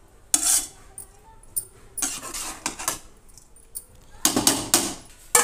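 A spoon scraping and clinking against the sides of a metal cooking pot while potatoes in a thick gravy are stirred, in a handful of separate strokes, the loudest near the start and about four seconds in.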